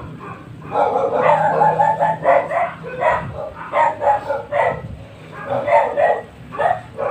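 Dog barking repeatedly, about a dozen short barks in quick runs.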